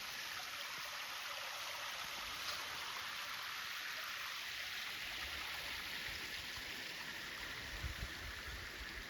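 Mountain stream rushing steadily, an even hiss of moving water, with a few soft low thumps near the end.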